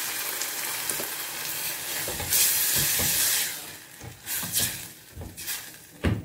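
Tomato sauce sizzling over fried garlic in a stainless steel saucepan on a gas burner: a steady hiss that swells about two and a half seconds in, then dies down. After that, a silicone spatula stirs the sauce with a few short scrapes against the pot.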